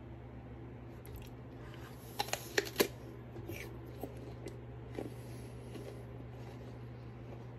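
Someone biting into a crisp red apple about two seconds in, a quick run of sharp crunches, then fainter crunches as the mouthful is chewed. A steady low hum runs underneath.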